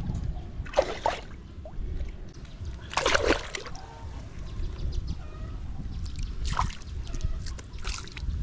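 Shallow muddy pond water splashing in several irregular bursts as hands grope inside a woven bamboo plunge-basket fish trap to catch a snakehead fish. The loudest splash comes about three seconds in.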